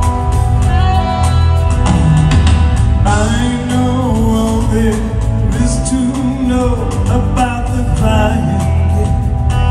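Live band playing a slow pop ballad with guitar, bass and drums, recorded from the audience. A male lead vocal comes in about three seconds in and sings over the band until near the end.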